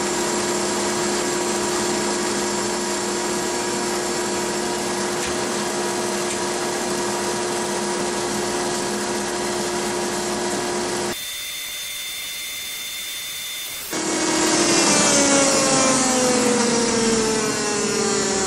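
Abrasive blast cabinet running: a steady hiss of air and grit under a constant machine hum. About eleven seconds in the sound cuts abruptly to a quieter hum, and from about fourteen seconds a louder whine falls steadily in pitch.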